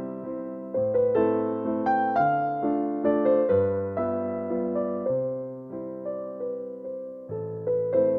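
Intro music on piano: a slow melody of struck notes that ring and fade, over bass notes that change about once a second.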